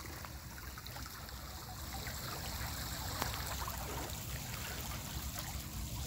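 Steady rush of water flowing into a pond, churning the surface.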